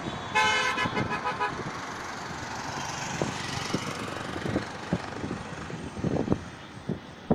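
A vehicle horn toots once, about a second long, near the start, over steady road traffic noise.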